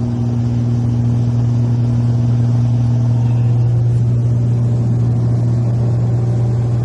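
Beechcraft Baron 58's twin piston engines and propellers droning steadily at reduced cruise power, heard inside the cockpit as an even, deep hum.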